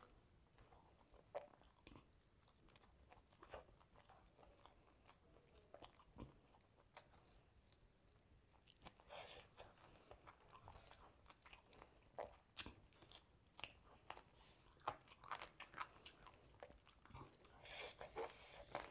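Faint, close-miked eating sounds: a person biting and chewing grilled chicken, with small wet clicks and crunches. They come sparsely at first and grow denser from about halfway through.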